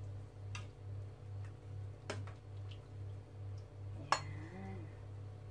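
A metal ladle clinking against a stainless steel soup pot and bowl as soup is ladled out: a few sharp clinks, the loudest about four seconds in. Underneath runs a steady low hum that pulses about twice a second.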